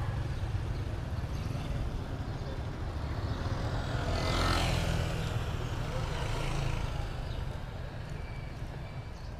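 A road vehicle passing close, its noise swelling to a peak about halfway through and then fading, over a steady low rumble.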